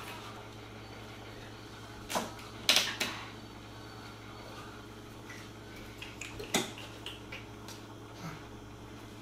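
A kitchen chair and things on the table knocking and clattering while a toddler is seated at the table: sharp knocks about two and three seconds in, another just past six seconds, and lighter taps around it, over a steady low hum.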